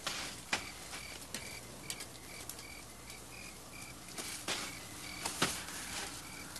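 Night ambience of crickets chirping steadily, about two short high chirps a second, with a few sharp snaps and rustles scattered through it; the loudest snaps come about half a second and about five and a half seconds in.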